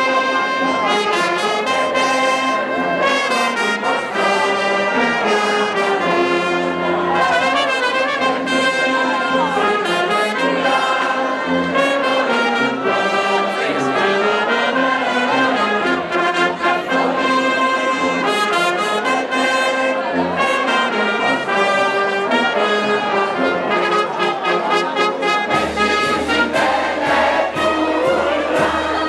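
Brass band of trumpets and trombones playing a tune together. Near the end the sound changes to a noisier mix, with the crowd's noise coming in.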